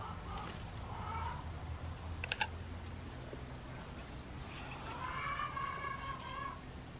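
Japanese quail (Coturnix) calling softly: a short call about a second in, then a quick run of three or four sharp high peeps about two seconds in, and a longer trilling call of about a second and a half starting about five seconds in, over a low steady hum.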